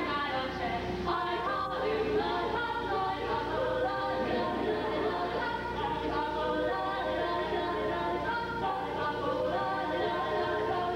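A high school show choir singing together in harmony.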